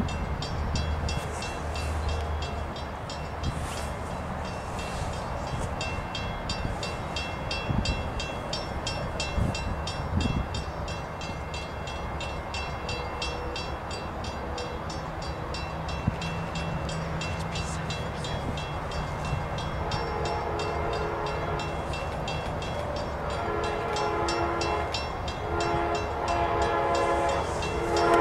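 Locomotive horn of an approaching train, heard from a distance, sounding a series of blasts that start about two-thirds of the way in and grow louder near the end. Before the horn, only a steady low outdoor rumble.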